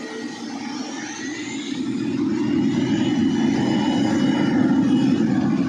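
Jet airliner engines at takeoff power on a wet runway. A rising whine comes in about a second in, the roar swells over the next second or so and then holds steady, with a thin high whine over it.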